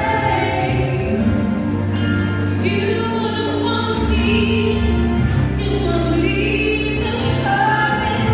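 A woman singing solo into a microphone through PA speakers, over instrumental accompaniment, holding some notes for about a second.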